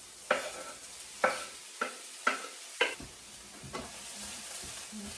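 Onions and grated carrots sizzling in a hot pan, with a steady hiss, while a utensil knocks against the pan about five times in the first three seconds as they are stirred.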